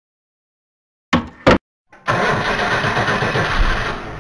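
Two short thuds, then an engine starts about two seconds in and keeps running steadily with a rough rumble.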